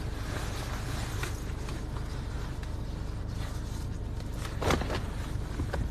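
Car engine idling with a steady low hum. A short thump about four and a half seconds in, and a smaller one near the end.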